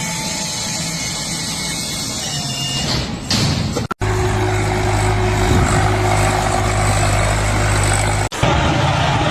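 Loud machinery and engine noise in three short segments that cut off abruptly, the middle one carrying a steady low motor hum.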